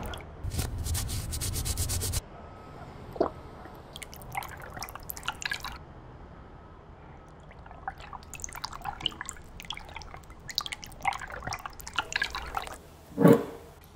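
Liquid dripping: scattered small drops, then one loud, deep plop about a second before the end. A loud rasping noise runs for about a second and a half at the start and cuts off suddenly.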